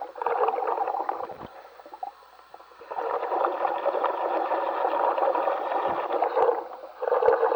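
A commercial diver's breathing and exhaust bubbles gurgling in his helmet, heard through the dive radio. The rush fades out for about a second and a half early on, then comes back and dips briefly again near the end.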